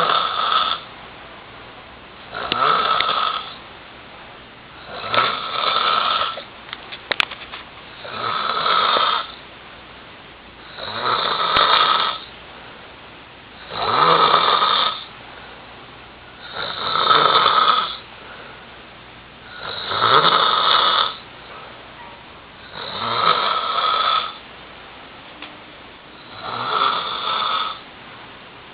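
A person snoring heavily in deep sleep, a loud rasping snore roughly every three seconds, about ten in all, with quiet breathing gaps between.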